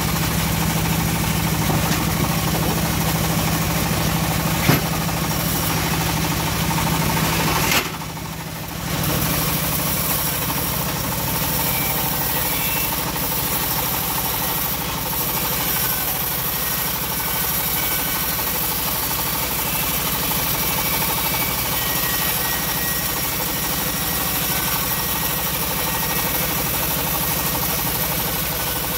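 Home-built bandsaw mill running steadily while a teak plank is fed through the blade and ripped lengthwise. The sound drops out for about a second about eight seconds in, then resumes.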